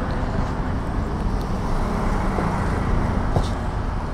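Steady road traffic noise: vehicles running past, a continuous low hum of engines and tyres.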